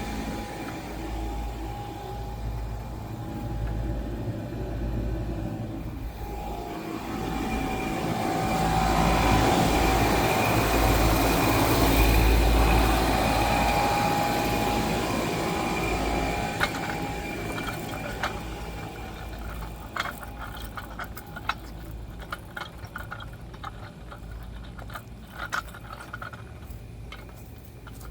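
Outdoor heat pump units running: a steady hum of fan and compressor with a constant whine, swelling louder toward the middle, with scattered clicks and ticks in the last several seconds.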